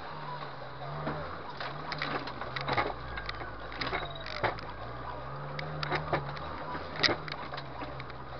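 Off-road vehicle working over rough forest ground: its motor's pitch rises and falls with the throttle, under frequent knocks and rattles from the bumpy ride, the sharpest about seven seconds in.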